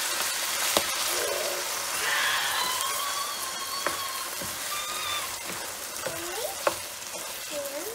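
Raw chicken pieces frying in plenty of sesame oil, sizzling steadily while a wooden spatula stirs them, with a few sharp clicks.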